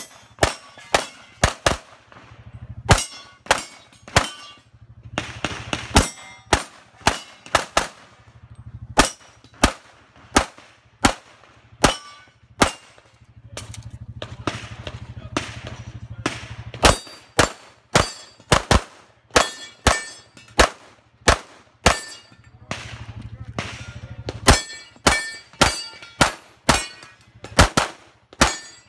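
Pistol gunfire on a practical-shooting stage: dozens of shots, fired in quick pairs and strings with short pauses between them.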